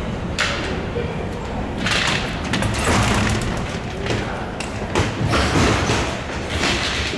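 Irregular thuds and scuffs of someone walking across a hard station floor, over a steady low rumble.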